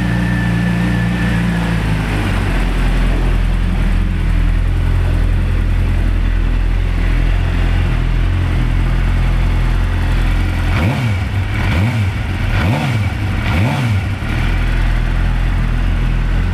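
A 2007 Suzuki GSX-R750's inline-four engine, with its stock exhaust, idling steadily after starting right up and running fine; the idle settles lower about two seconds in. From about eleven seconds in it is revved four times in quick blips, each rising and falling back to idle.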